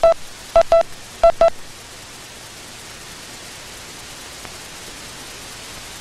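Morse code tone sending the letter India, dit-dit, three times over in quick pairs during the first second and a half. After that there is only a steady hiss.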